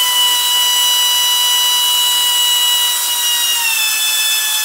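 Air drill running steadily under load, spinning an engine's oil pump through a priming tool to build oil pressure with an empty oil filter: a steady whine over air hiss. Its pitch drops slightly about three and a half seconds in.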